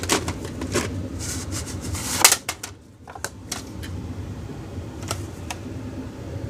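Plastic clicks and knocks of a VHS cassette and its case being handled, with one sharper click about two seconds in.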